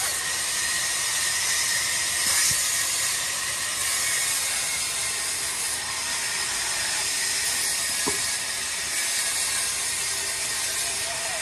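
Large vertical band saw cutting lengthwise through a yew log: a steady hiss from the blade in the wood, with two faint knocks, one about two and a half seconds in and one near eight seconds.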